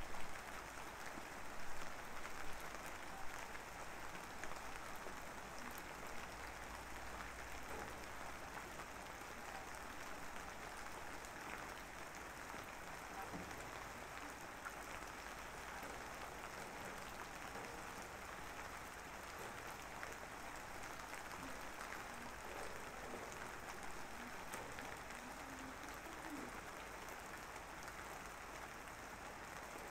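A soft, steady hiss like falling rain, a background ambience track, a little louder and more uneven in the first few seconds.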